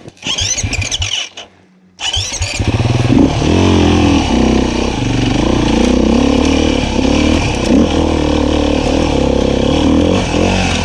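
Beta 500 RR-S dirt bike's single-cylinder four-stroke engine: after a near-quiet pause it starts up suddenly about two seconds in, then runs steadily with the throttle rising and falling.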